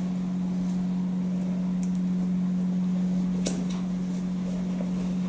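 A steady low hum throughout, with a single sharp click about three and a half seconds in as a handheld lighter is struck.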